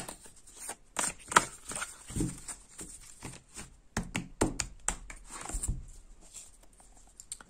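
A deck of large Dixit picture cards being shuffled and handled by hand, giving irregular quick clicks and flicks of card stock with a few soft knocks.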